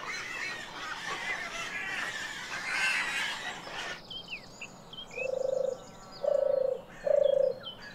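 European turtle dove purring: three deep rolling notes about a second apart, starting about five seconds in, with small birds chirping above them. Before that, a soft rustling noise.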